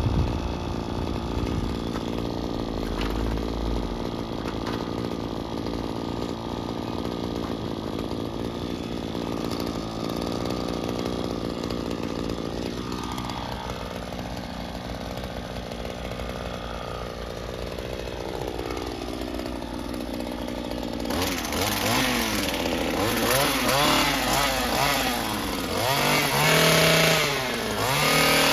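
Small petrol engine of lawn equipment running. In the middle its pitch falls away in long glides; about three quarters of the way in it turns louder and brighter, its revs wavering up and down.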